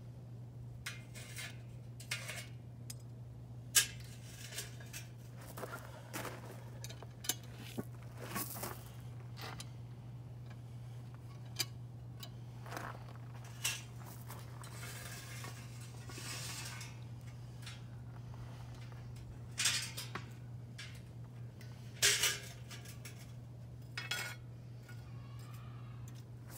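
Metal tongs clinking and scraping against a cast-iron Dutch oven lid and a metal charcoal chimney starter as hot charcoal briquettes are poured and arranged on the lid. The clinks come scattered and irregular, with a few louder clanks.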